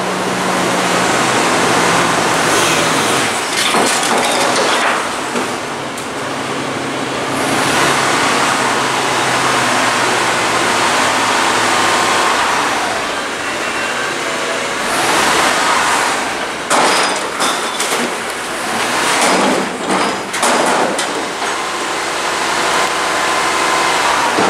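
CNG Autocar ACX front-loader garbage truck with a New Way Mammoth body, its engine running hard to power the hydraulics as the forks lift a dumpster over the cab to empty it. A series of metal clanks and bangs in the second half comes as the container is shaken out and brought back down.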